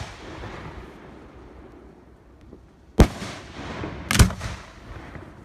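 Aerial fireworks shells bursting: the tail of one burst fades away at the start, then a sharp single bang about three seconds in and a quick double report about a second later, each trailing off.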